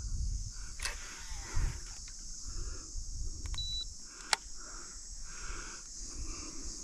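A steady high-pitched insect drone, with one short electronic beep about halfway through, typical of an electric trolling motor's remote confirming spot-lock, and a few sharp ticks.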